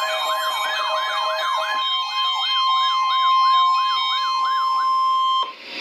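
NOAA Weather Radio's steady 1050 Hz warning alarm tone, with a weather radio receiver's wailing siren alert going off over it, sweeping up and down about two and a half times a second. A lower beeping alert stops about two seconds in, the siren stops near five seconds, and the tone cuts off just before the end.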